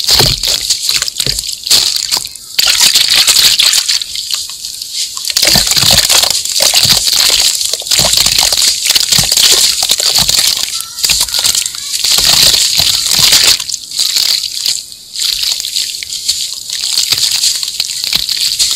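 Hands crumbling and squeezing lumps of wet sand into a shallow basin of water: gritty crunching with water sloshing. Many small crackles run through it, swelling and easing as the lumps break.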